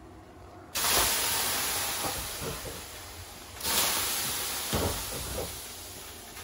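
Water ladled onto the hot rocks of a wood-fired sauna stove, hissing into steam twice: a sudden loud hiss about a second in that fades over a few seconds, and another just past halfway.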